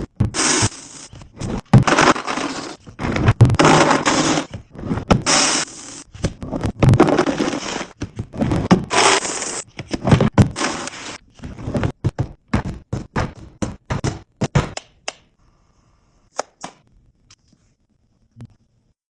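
Kitchen restocking sounds: a quick run of knocks, scrapes and rustling bursts as items and containers are handled and set down, thinning out and stopping about fifteen seconds in.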